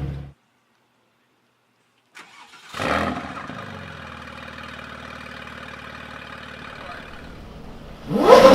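A supercar engine starting up: a brief crank, then it catches with a loud flare and settles into a steady idle, followed by one sharp rev blip near the end.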